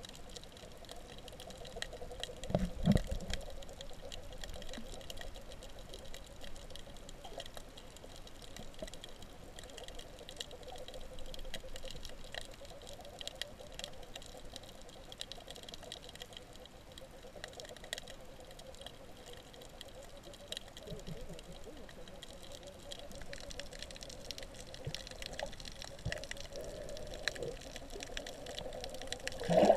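Underwater sound picked up by a submerged recorder: a constant fine crackle of clicks over a steady, wavering buzz, which the uploader takes for the fish making noise. A low thump comes about three seconds in, and a louder burst at the very end.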